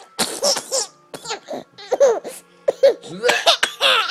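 Fake retching, throw-up noises made with the voice in short harsh bursts, mixed with a boy's hard, high-pitched laughter.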